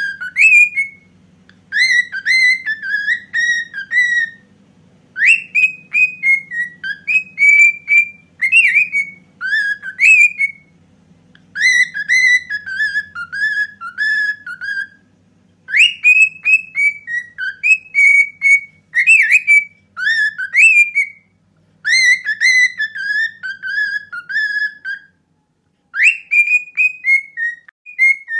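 Cockatiel whistling the melody of a Turkish mehter march, a series of short phrases of quick, gliding whistled notes with brief pauses between them.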